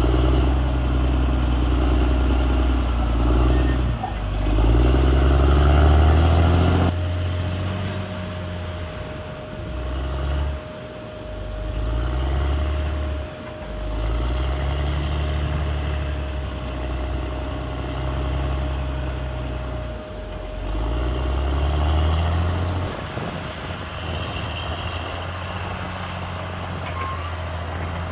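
Caterpillar D6R bulldozer's diesel engine working hard, its pitch rising and falling again and again as it takes and sheds load. A thin steady whine runs through the middle stretch, and near the end the engine settles to a steadier, lower note.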